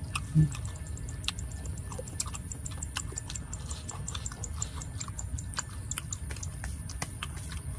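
Close-up chewing of ketoprak with krupuk crackers: many small irregular crunchy clicks from mouths eating. A brief low hum of a voice about half a second in.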